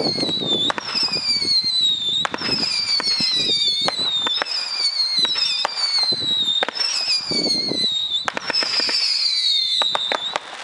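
Multishot fireworks cake firing spinning whistle shots one after another: each a falling whistle lasting about a second and a half, mixed with sharp pops and crackling from the silver palm and strobe breaks. The whistling stops near the end.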